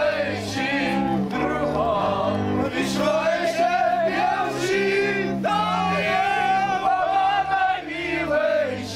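A group singing a Moravian folk song together in full voice, with a double bass playing steady low notes underneath that change step by step with the tune.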